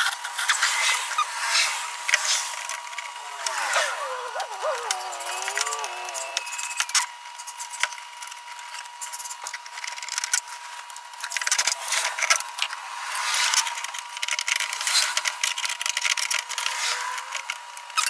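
Hand tools and metal door parts clicking and rattling as a pickup truck's door lock parts and door panel are reassembled: a long run of quick clicks, with a steady high tone under them.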